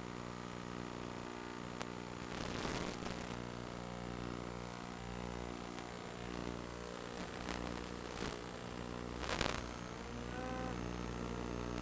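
FPV quadcopter motors and propellers buzzing in a steady hum, with a couple of short rushing whooshes.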